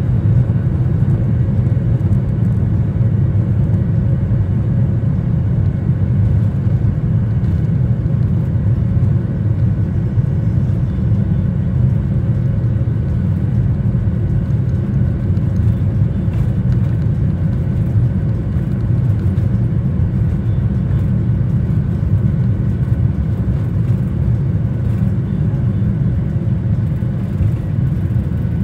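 Cabin noise of a Boeing jet airliner moving on the ground: a loud, steady low rumble of its jet engines and rolling wheels, heard through the fuselage by the window.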